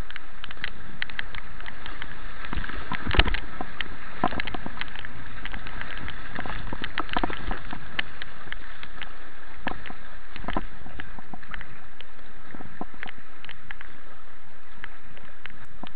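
Moving river water rushing around a kayak, with the many short splashes and knocks of paddle strokes in the current; one sharper knock about three seconds in.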